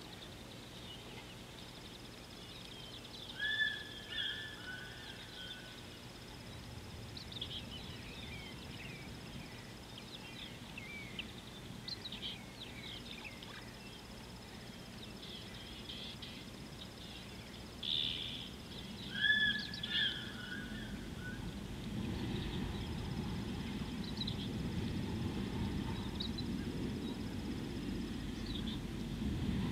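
Wild birds calling over outdoor background noise. A loud two-part call comes about three seconds in and again near the two-thirds point, with scattered short chirps between. A low rumbling noise comes up about three-quarters of the way through.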